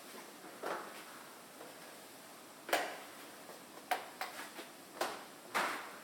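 A handful of irregular knocks and clunks in a small wood-panelled room as someone carries the camera across it: footsteps on the wooden floor and handling of the camera, the loudest nearly three seconds in.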